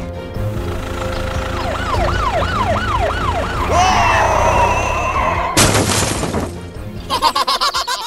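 A police siren wailing rapidly up and down about six times over background music, followed by a loud burst of noise lasting about a second.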